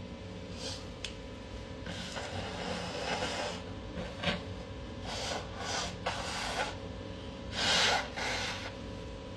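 A person sniffing and breathing hard through the nose during a sneezing fit, a string of short breathy sniffs with no full sneeze. The loudest comes about eight seconds in.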